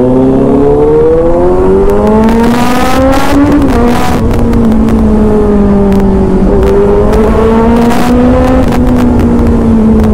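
Kawasaki Z900's inline-four engine and exhaust pulling hard under acceleration. The revs climb in second gear, dip at the shift to third about three and a half seconds in, then hold fairly steady at speed.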